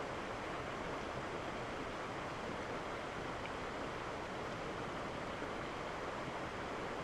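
Steady, even rushing noise with no distinct events, of the wind-and-water kind.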